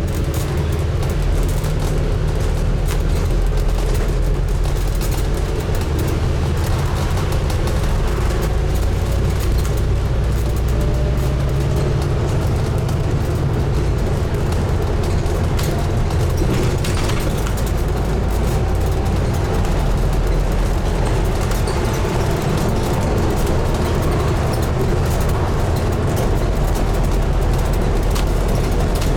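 Scania N250UD double-decker bus driving, its diesel engine and road noise heard from inside at the front of the bus: a steady low rumble, with a faint whine rising slowly in pitch through the middle.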